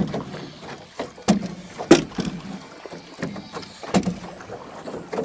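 Paddling a small rowboat: several sharp, hollow knocks of paddles striking the boat, with water splashing in between.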